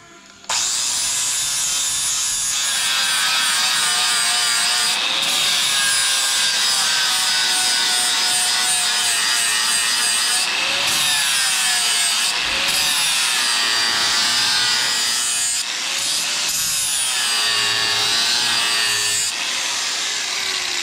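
Corded Milwaukee angle grinder with a flap sanding disc grinding the steel edge of an axe head. The motor's whine starts about half a second in and sags and recovers again and again as the disc is pressed onto the blade. It winds down near the end.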